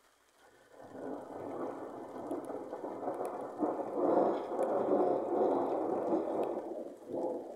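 Rolling thunder rumbling. It builds about a second in, is loudest around the middle, and fades near the end with a couple of smaller swells.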